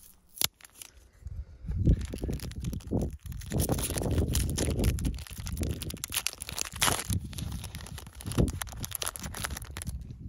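Foil wrapper of a Pokémon booster pack crinkling and rustling as it is handled and pulled open by hand, with a sharp click about half a second in.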